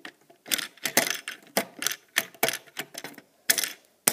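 Plastic Lego pieces clicking and clacking as a hand repeatedly presses the launch mechanism on a Lego rock piece, about three sharp clicks a second.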